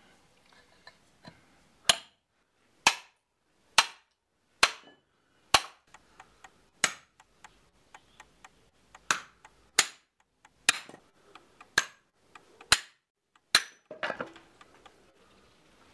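Hatchet chopping into a wooden block, roughing out a spoon blank: about a dozen sharp strikes, roughly one a second, with lighter knocks in a short lull midway.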